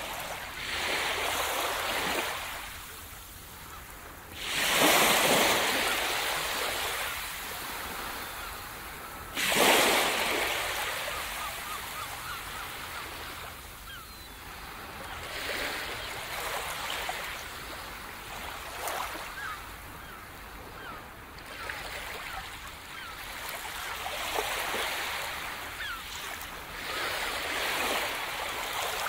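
Small waves breaking and washing up the sand in surges every few seconds, the two loudest crashing in sharply about four and a half and nine and a half seconds in.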